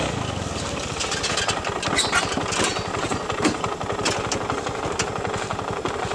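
Small scooter engine idling steadily, a fast, even run of firing pulses.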